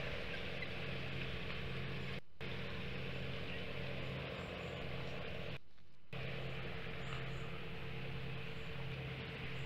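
A steady low hum with a constant hiss behind it, like a distant idling motor, which cuts out completely for a moment twice, about two seconds in and again near the middle.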